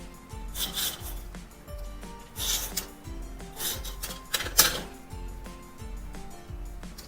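About four short rubbing, scraping strokes of paper being handled and pressed on a journal page, the last near the end the loudest, over soft background music.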